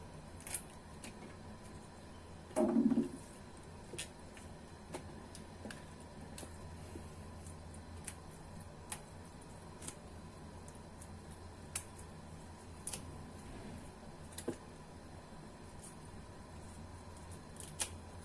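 Celery leaf stems being snapped and torn off by hand, giving small crisp snapping clicks every second or two over a faint steady hum. A louder, dull thump comes about two and a half seconds in.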